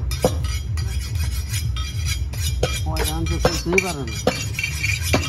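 Large butcher's knife cutting beef on a wooden chopping block: irregular sharp knocks and metallic clinks of the blade, over a steady low hum. A voice is heard in the background about three seconds in.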